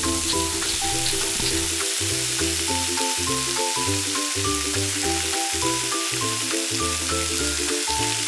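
Seafood sizzling as it fries in oil with spicy sauce in a miniature pan: a steady hiss. Background music with a simple melody and bass line plays over it.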